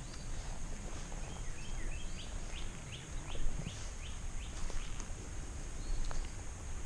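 Outdoor ambience with a steady low rumble and a steady high-pitched whine. A bird calls a quick run of short descending chirps from about one and a half seconds to four seconds in.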